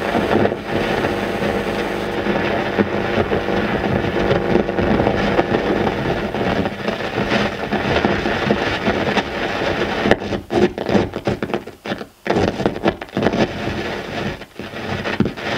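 Dense, rumbling noise with faint steady droning tones underneath, breaking up into choppy, stuttering cuts and dropouts from about ten seconds in, like a cut-up noise soundtrack.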